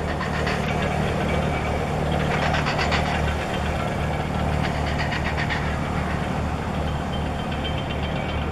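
Marine diesel engine running steadily as the ship passes close: a low hum with a fast knocking clatter over it.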